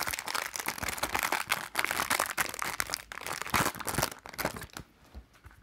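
Plastic wrapping crinkling and crackling as it is handled and pulled off a small card album, stopping about four and a half seconds in.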